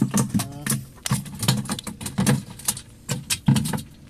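Rapid, irregular clicking and knocking with low thuds in between, from gear being handled in shallow water: a metal spear pole and a plastic jerrycan.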